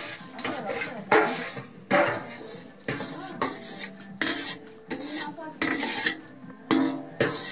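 A metal spoon scraping rice out of a stainless steel bowl into a pot of boiling water: about a dozen quick metal-on-metal scrapes and knocks, with the bowl ringing between them.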